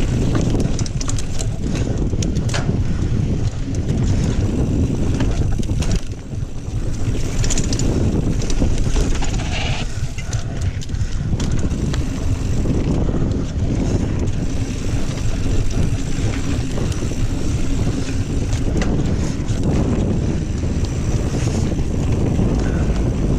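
Kona Honzo ST hardtail mountain bike riding fast over dirt singletrack: steady tyre and trail rumble with frequent clicks and rattles from the bike, and wind buffeting the GoPro's microphone. The noise drops briefly about six seconds in.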